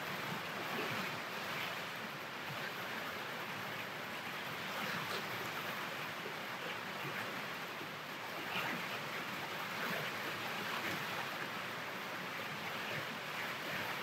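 Steady rain and wind, an even hiss that holds at one level throughout.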